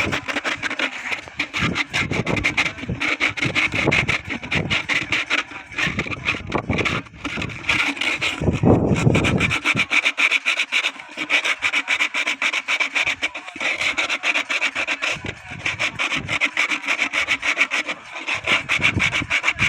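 Sandpaper rubbed back and forth along the wooden stave of a berimbau in quick, steady strokes: the stave being sanded smooth as part of finishing it.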